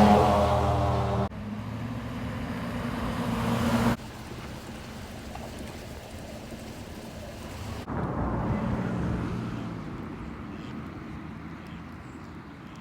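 Motor vehicle traffic in short clips cut one after another. A loud engine hum cuts off about a second in and gives way to a steadier, quieter engine hum. Another vehicle passes about eight seconds in, and its sound fades away.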